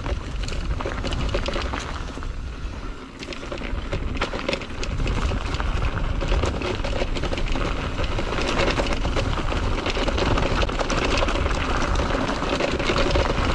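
E-mountain bike riding down a stony trail, heard from a rider-mounted action camera: wind buffeting the microphone, tyres rolling over loose stones, and frequent rattles and knocks from the bike. It gets louder about five seconds in.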